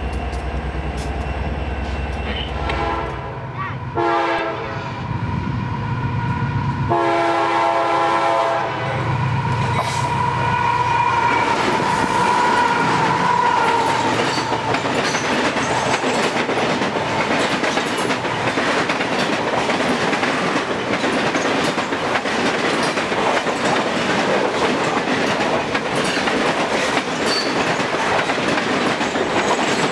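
Diesel freight locomotive running close by with a low rumble. Then a multi-note train air horn sounds twice, a short blast about 4 seconds in and a longer one about 7 seconds in. After that comes the steady rumble and clickety-clack of boxcars rolling past close to the track, with a high squeal for a few seconds near the middle.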